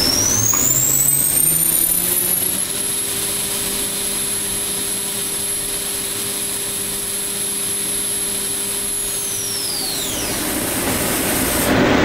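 Leadwell V-20iT machining centre spindle whining: its pitch rises as it spins up over the first few seconds, holds steady at speed, then falls as it winds down about nine to ten seconds in, over a steady machine hum.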